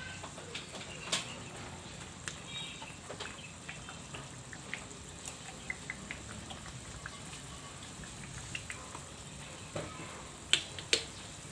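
Food sizzling in a pan during stir-frying, with scattered small crackles and a few sharp knocks, the two loudest near the end.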